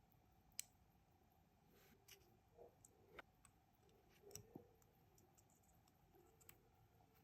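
Faint, scattered small clicks and taps of watchmaker's tools on a vintage wristwatch during bench work, about a dozen irregular ticks with the sharpest about half a second in and a cluster around four and a half seconds.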